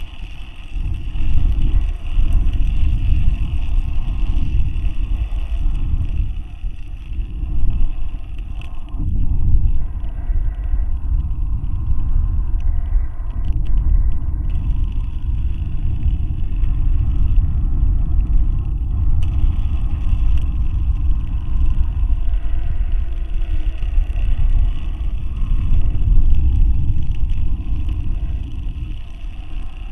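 Loud, uneven low rumble picked up by the onboard camera of a high-altitude balloon payload, swelling and easing throughout.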